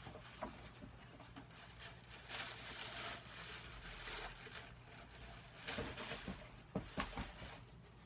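Rustling and handling of a pair of shoes and their packaging, with a few light knocks a little before the end.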